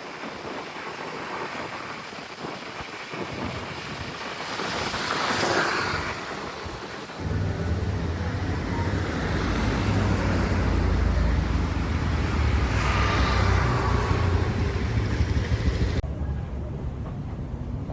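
Road traffic noise with a couple of vehicles swelling past, and from about seven seconds in a steady low rumble.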